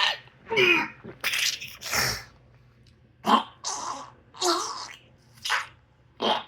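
A man's coughing fit: about nine harsh coughs in quick succession, some of them voiced, as a cough he has been trying to hold in breaks out.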